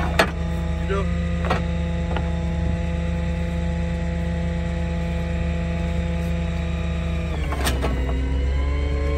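Tow truck's engine idling steadily, with a few sharp metal clanks as the wheel-lift is fitted under the car's front wheels. Near the end a clank comes and the engine note dips and then rises as the hydraulic wheel-lift is worked.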